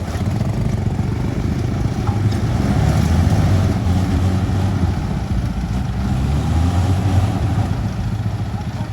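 Old truck's engine running hard during a power test: a steady, loud, low drone.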